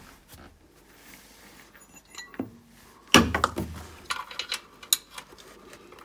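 Metal tools and parts clinking and knocking while someone works under a car, with one loud knock about three seconds in and several lighter clinks after it.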